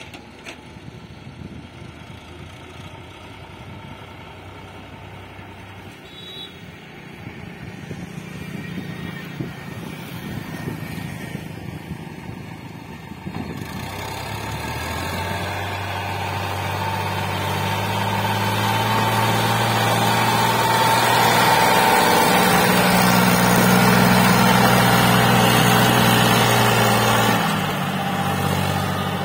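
Diesel tractor engine pulling a loaded soil trailer, a steady low drone that grows louder as it approaches and passes close by, loudest about three quarters of the way through and dropping off near the end.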